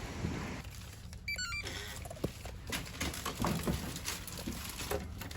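A short electronic chime, a quick run of beeps stepping down in pitch about a second in, followed by scattered clicks and knocks.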